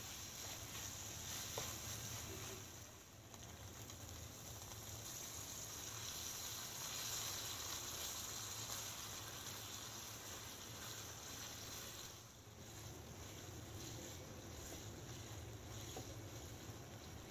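Chicken strips in sauce sizzling in a non-stick wok while a spatula stirs them: a steady hiss that dips briefly twice.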